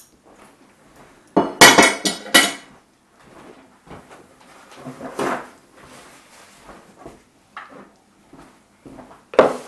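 Plates and metal serving utensils clattering as dishes are handled: a loud cluster of clatters about a second and a half in, then scattered lighter knocks and clinks, and a sharp clink near the end.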